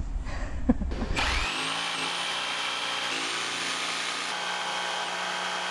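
Milwaukee FUEL cordless jigsaw cutting through a wooden countertop. About a second in, its motor whine rises as it comes up to speed, then it runs steadily through the cut.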